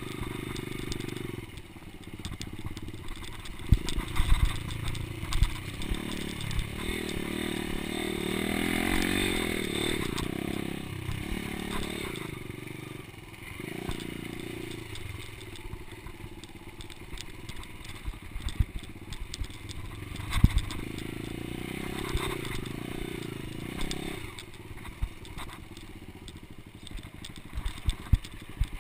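Dirt bike engine running under way, its sound swelling and easing with the throttle over stretches of a few seconds. It is mixed with scattered sharp knocks and rattles from the bike on rough ground.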